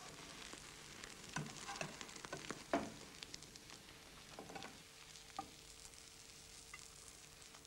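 Faint sizzling of egg and butter in a frying pan as an omelette is rolled and tipped onto a plate, with a few light clicks and scrapes of a knife against the pan.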